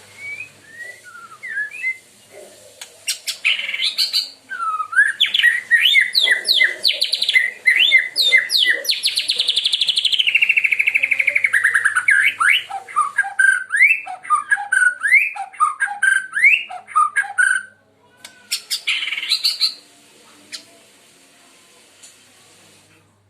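A white-rumped shama of the Medan strain (murai batu Medan) singing a loud, varied song. It sings rising and falling whistled notes, with a long rapid trill sliding down in pitch midway. A short harsh phrase comes near the end.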